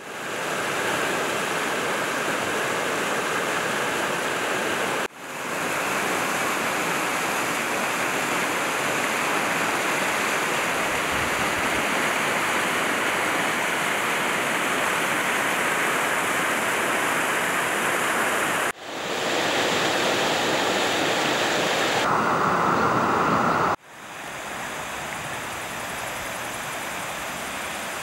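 Muddy floodwater of a river swollen by torrential rain, rushing over rapids in a steady, loud rush of water. The sound breaks off sharply three times at cuts between shots, the last stretch a little quieter.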